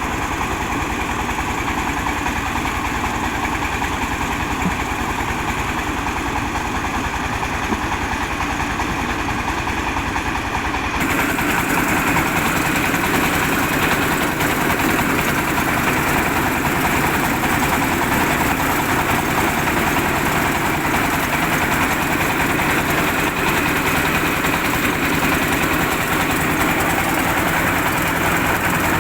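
Diesel engine of a mobile rice huller running steadily. About eleven seconds in the sound changes abruptly, becoming louder and brighter, then holds steady.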